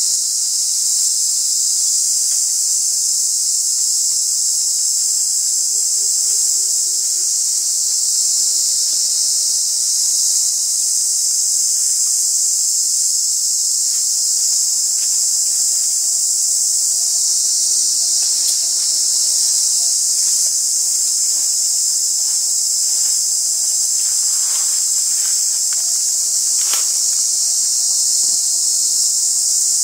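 A dense insect chorus droning steadily at a high pitch, with a few faint ticks near the end.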